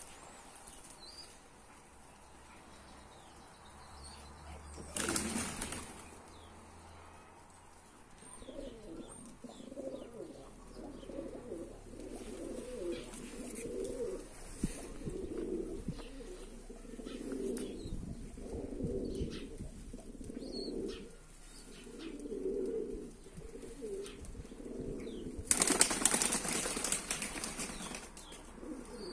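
A flock of domestic flying pigeons cooing over and over. There is a short burst of wing flapping about five seconds in, and a longer, louder one near the end as birds take off.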